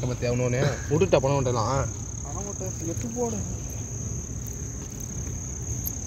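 Steady, high-pitched chirring of night insects, with voices talking over it in the first two seconds and briefly again around the third second.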